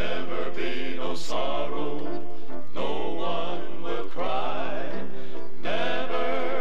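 Male Southern gospel quartet singing in close harmony, the voices moving together in phrases over sustained low notes. A brief click sounds about a second in.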